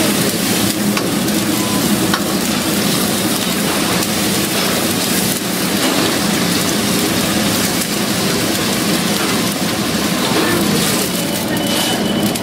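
Hot fat sizzling and bubbling in an iron wok over a gas burner, stirred with a metal spoon.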